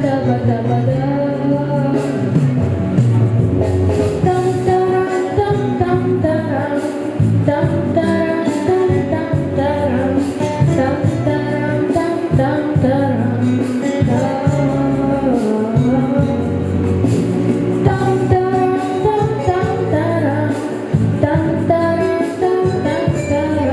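A boy singing a pop song over a backing track.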